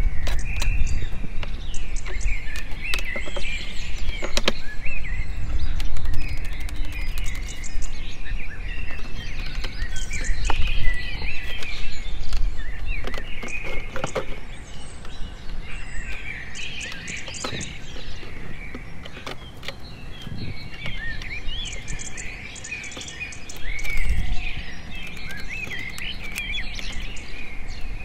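Small birds chirping and calling continually, with scattered clicks and knocks from hands handling a large plastic water bottle.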